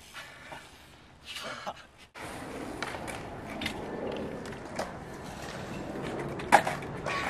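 BMX bike tyres rolling over skatepark concrete: a steady rumble that builds, with scattered clicks and a sharp knock about six and a half seconds in.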